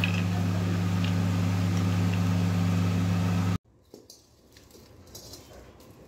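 A steady low machine hum with a few fixed tones, cutting off suddenly about three and a half seconds in. After that, a few faint clinks of a steel spoon in a pot.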